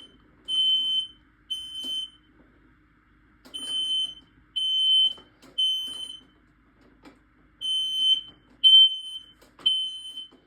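Smoke alarm sounding its alarm in the temporal-three pattern: three high-pitched beeps of about half a second each, then a short pause, repeating. This is the standard evacuation signal, here set off by a test.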